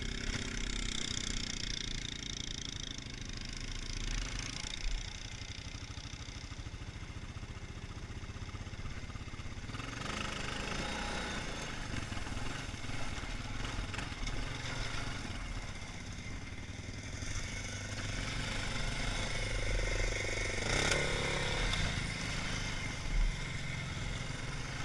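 Single-cylinder engine of a Honda 450 ATV running as it is ridden, with wind hiss on the helmet microphone. It gets louder about ten seconds in, and the engine speed swells and drops about twenty seconds in.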